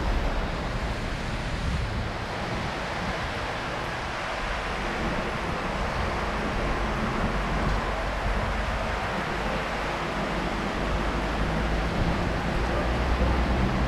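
Wind rumbling and buffeting on the microphone over a steady outdoor hiss.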